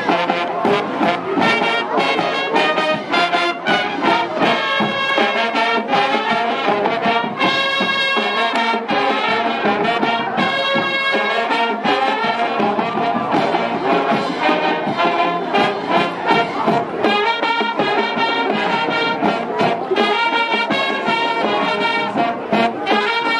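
High school marching band playing on the field: a brass-led tune with clarinets, over a steady beat of drums.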